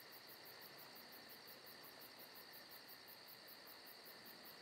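Near silence: faint steady hiss with a faint, evenly repeating high-pitched pulsing, about six or seven pulses a second.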